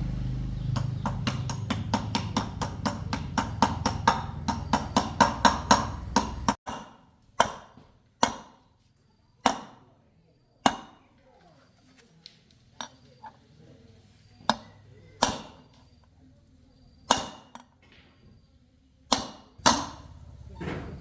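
A motorcycle engine running with rapid clicking over it, stopping abruptly about six and a half seconds in. It is followed by a series of separate sharp knocks with a short ring, one every second or two.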